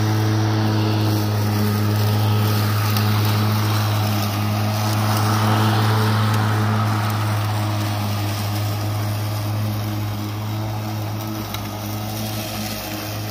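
Greenworks Pro 60V brushless 21-inch cordless lawn mower running on turbo, its motor and blade giving a steady hum as it cuts through tall, thick grass and weeds. A louder rushing sound swells about halfway through.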